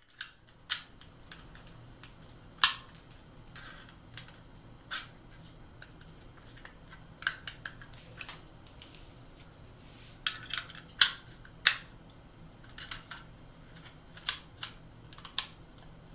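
Irregular sharp clicks and taps of small hard plastic parts being handled, a few seconds apart and sometimes in quick clusters, over a faint steady low hum.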